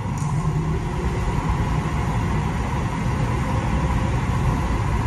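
Steady rushing of a large waterfall, Niagara Falls, heard as a recording through a theater's sound system, heaviest in the low end.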